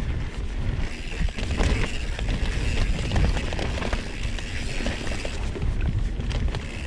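Mountain bike being ridden over a dirt trail: tyre noise and a continual rattle of clicks and knocks from the bike, over a low rumble.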